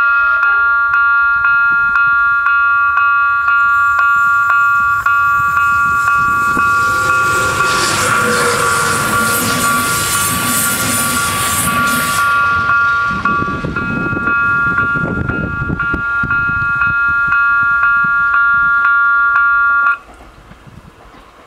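Level-crossing warning bells ring steadily in an even repeating rhythm while a Renfe regional passenger train rushes past over the rails, its noise building and then fading. The bells cut off suddenly near the end as the crossing clears.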